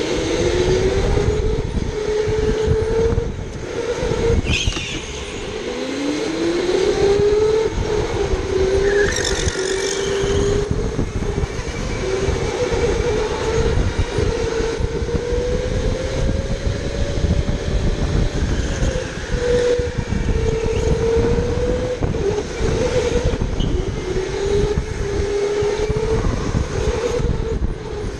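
Electric go-kart motor whining from on board, its pitch rising as the kart accelerates and dipping as it slows for corners, over a heavy low rumble. Two brief high squeals come about 4 and 9 seconds in.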